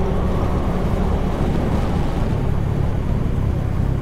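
Motorcycle engine running while riding, heard as a steady low rumble.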